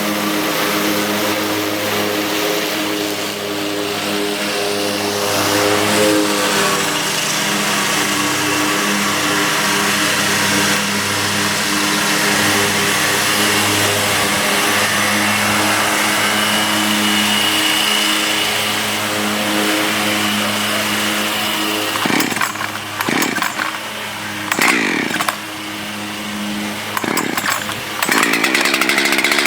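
Two-stroke chainsaw running steadily at low revs, then revved in several short blips about two-thirds of the way through, and held at high revs near the end.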